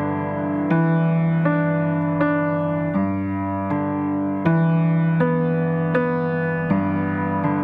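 Background music: a gentle piano or electric piano playing a slow, even run of single notes, about one new note every three-quarters of a second.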